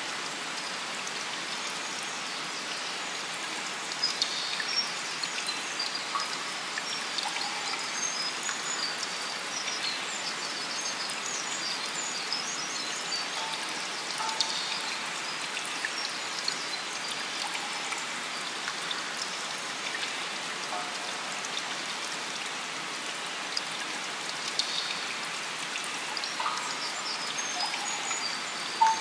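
Steady rain and dripping water, with scattered short high notes and a few brief lower tones sounding over the hiss.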